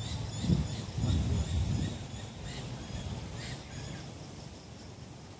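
Birds chirping repeatedly in the surrounding trees over a steady high-pitched whine, with some low rumbling in the first two seconds.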